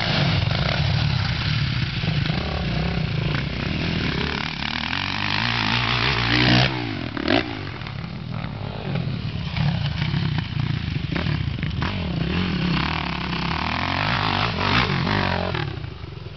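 Dirt bike engines revving up and falling off as riders take the jumps on a motocross track, with the pitch rising and dropping again several times.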